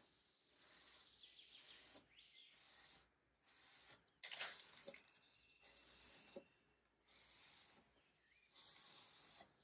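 Near silence, broken by faint on-and-off swishes of a cloth wiping wood stain across a veneered wooden tabletop, the loudest about four seconds in.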